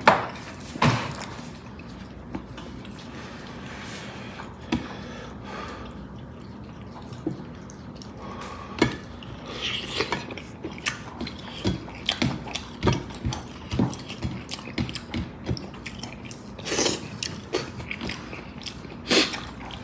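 A person eating a meal: chewing, with irregular sharp clicks and knocks of utensils against a dish, coming faster about midway.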